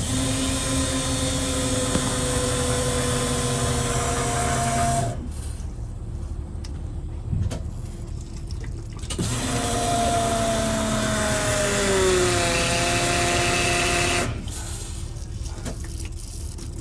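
An electric motor whining in two runs of about five seconds each, its pitch sagging slowly through each run. It is heard while working on the Holden VL Commodore's fuel system and starting, and the engine does not fire.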